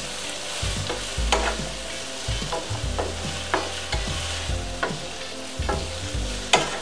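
Diced onion and bell peppers sautéing in hot oil in a skillet with a steady sizzle, while a wooden utensil stirs them, scraping and tapping against the pan every half second or so.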